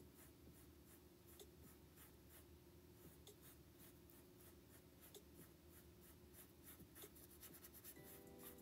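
Faint scratching and brushing of paintbrush bristles over a canvas as acrylic paint is laid on in quick, irregular strokes.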